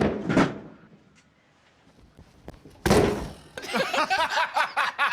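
Heavy bangs on a stuck elevator's door as rescuers try to force it open from outside. There are two blows close together, then a louder slam about three seconds in, followed by excited, raised voices.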